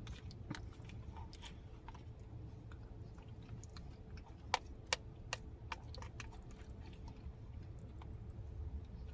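Close-up chewing and biting of chili and cornbread, with soft mouth and utensil clicks and a few sharper clicks about halfway through, over a low steady hum.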